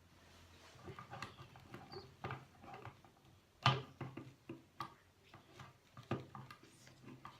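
Irregular clicks and taps of small plastic toy parts being handled, with one sharper knock about halfway through.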